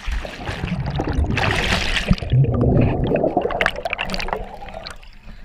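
Underwater sound of a camera submerged in a lake: a dense rush of bubbles and churning water, muffled, strongest about a second and a half in and fading toward the end.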